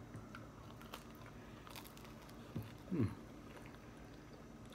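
Quiet chewing and biting of a pizza slice, with a few faint crunches of the crisp crust. A short falling hum comes about three seconds in.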